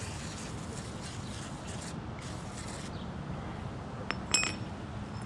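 A single sharp metallic clink about four seconds in, ringing briefly, from steel U-bolts being handled as they are cleaned with brake cleaner, over a steady low background noise.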